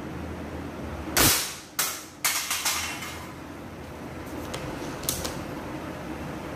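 Air rifle firing once, a sharp crack a little over a second in, then the pellet striking a drink can and the can clattering down in a quick run of metallic knocks; two faint taps follow a few seconds later.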